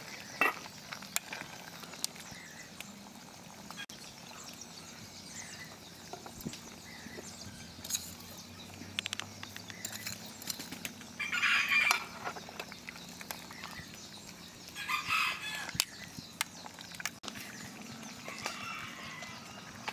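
Chickens calling: a rooster crowing and hens clucking, loudest in two calls about halfway and three-quarters of the way through, with scattered light clicks between.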